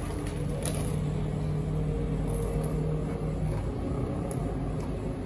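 Steady low mechanical hum and rumble; its humming tone fades out about two-thirds of the way through.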